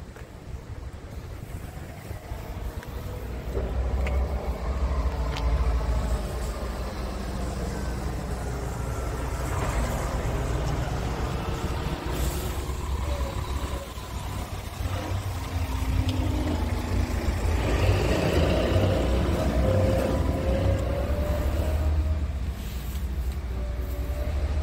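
A heavy truck's diesel engine running: a steady low rumble, with a higher engine note that slowly rises and falls. It gets louder about four seconds in.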